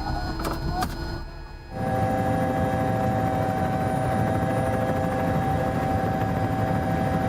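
A loud, steady engine drone cuts in abruptly a little under two seconds in, after a couple of sharp cracks, and holds an unchanging pitch.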